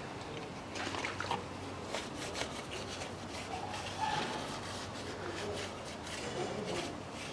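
A cloth rag rubbing over the degreased metal mating surface of a manual gearbox case where the oil pan seats, in faint, irregular scratchy strokes.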